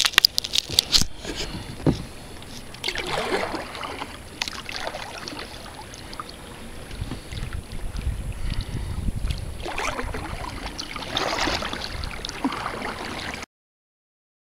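Kayak paddling: paddle strokes swishing through the water every few seconds, with a few sharp knocks or clicks in the first second. The sound cuts out completely for about a second near the end.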